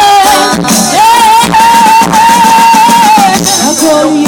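Live reggae band playing with a singer's voice over it; about a second in the voice holds one long high note for roughly two seconds, wavering slightly, then lets it go.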